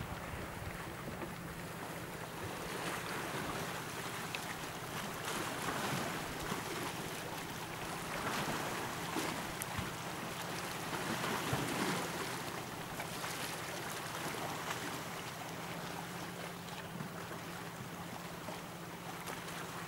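Wind and choppy lake water: an even rushing hiss that swells and eases every few seconds, over a faint steady low hum.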